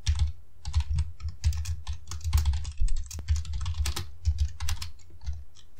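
Computer keyboard typing: a run of quick, irregular keystrokes.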